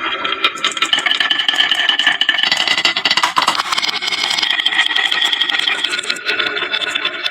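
Many marbles rolling and clattering down a wooden marble run, a dense, fast stream of clicks over a high rolling whir that shifts in pitch a couple of times.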